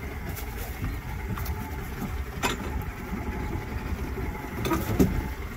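Boat's outboard motor idling as a steady low rumble with wind noise, while a cast net is thrown over the side: a brief knock about halfway through and a sharper, louder knock and splash near the end.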